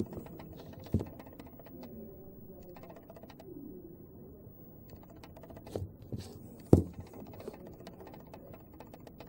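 Scattered small clicks and knocks, the loudest about two-thirds of the way in, from a nail-art brush and a glass glitter-polish bottle being handled on a table.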